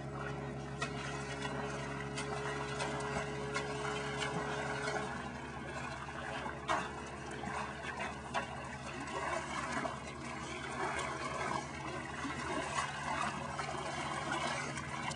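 Lake water splashing and lapping as a wolf and a person swim, with scattered small clicks and splashes over a steady low hum.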